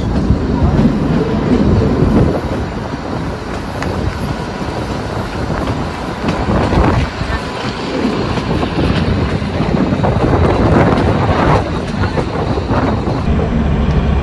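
Kalka–Shimla narrow-gauge toy train running along the track, heard from aboard: a steady low rumble with scattered knocks from the wheels and carriage.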